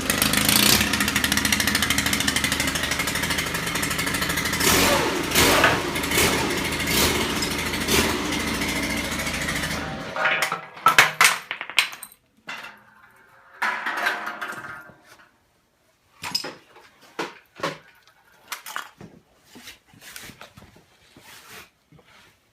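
A homemade Rube Goldberg machine running: a small electric motor runs loudly and steadily for about ten seconds, then cuts off. After that comes a string of separate clicks, knocks and short rattles as the machine's parts trip one another.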